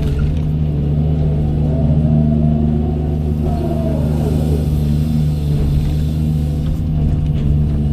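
Doosan 210W wheeled excavator's diesel engine running steadily under work, with a whine that rises and falls in pitch a couple of seconds in.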